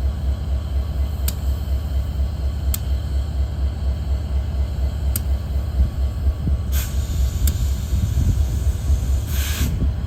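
Parked Metra diesel locomotive idling: a steady, pulsing low rumble, with two short bursts of hiss, the longer one near the end.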